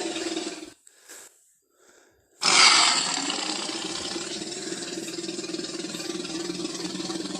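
Tyrannosaurus rex roar sound effect: one roar tails off under a second in, and after a short silence a second, long, rough roar starts suddenly and holds steadily.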